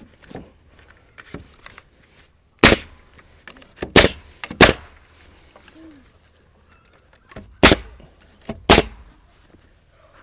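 Nail gun firing, five sharp shots at uneven spacing as nails are driven into the boards.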